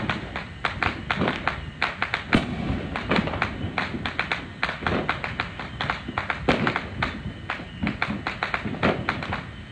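Many fireworks going off at once: a dense, irregular run of pops and bangs, several a second, with deeper thuds among them.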